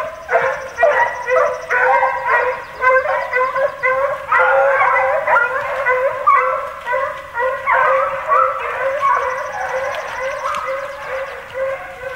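A pack of Penn-Marydel foxhounds in full cry: many hounds baying at once, their voices overlapping into a continuous chorus, the sign that the pack is running a scent line. The chorus thickens about a third of the way in.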